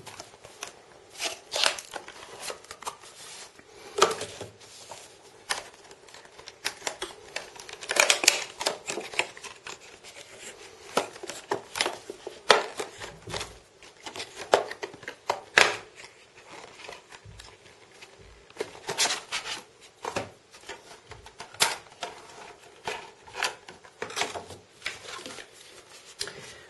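Cardboard box and clear plastic blister pack being handled and opened: irregular clicks, crackles and scrapes of card and stiff plastic.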